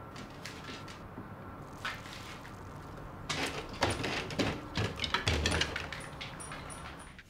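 Large poodle eating at an open window sill: a run of quick clicks and knocks in the middle, with a few short high pings near the end, over a faint steady hum.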